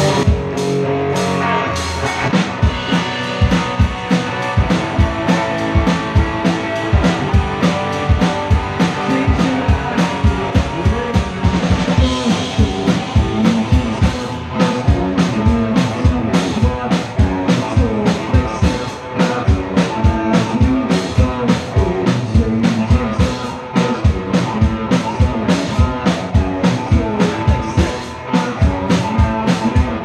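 Three-piece rock band playing live: electric guitar, bass guitar and drum kit, with no vocals and a steady, evenly spaced drum beat.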